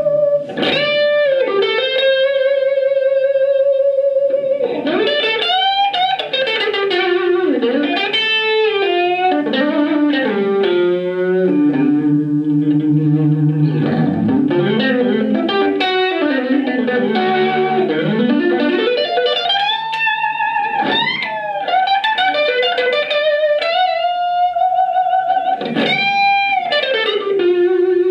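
Electric guitar played through an Artec SE-CMP Turbo Compressor pedal: long held single notes with wide string bends and quick legato runs, each note sustaining a long time. Near the end a long note bends down and is held.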